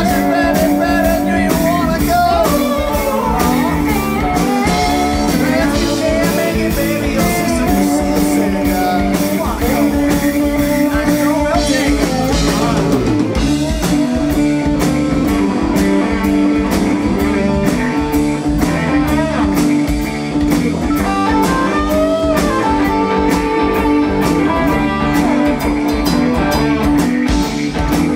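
Live blues-rock band playing: electric guitars, bass and drums, with a man singing in the first part; later the singing stops and the electric guitars carry on.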